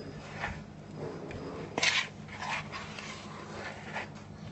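Cake batter being folded in a plastic mixing bowl: a few short scrapes and squelches of the utensil through the thick mixture and against the bowl, the loudest about two seconds in.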